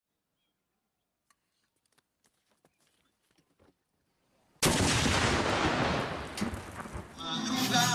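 Near silence with a few faint clicks, then a sudden loud blast of noise about four and a half seconds in that lasts a couple of seconds. Music begins near the end.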